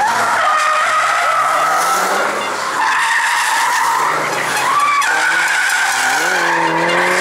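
A car drifting, its tyres squealing in long continuous screeches over the engine running at high revs. Near the end the engine note drops and then picks up again.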